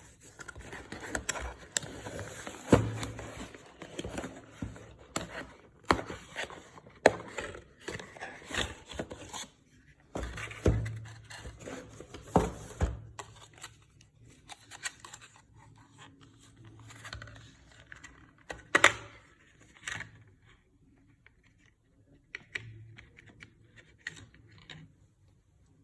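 Product packaging being opened and handled by hand: rustling and scraping with many sharp clicks and knocks. It goes much quieter about 20 seconds in, leaving a few faint clicks.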